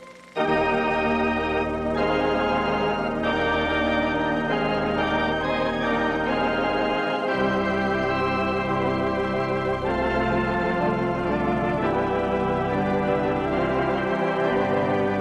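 Music score: sustained keyboard chords over a slowly moving bass line, coming in about half a second in after a brief hush.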